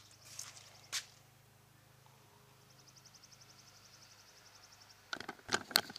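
Quiet outdoor background with a faint, rapid, high-pitched trill of about nine pulses a second in the middle. Near the end comes a burst of loud clicks and knocks.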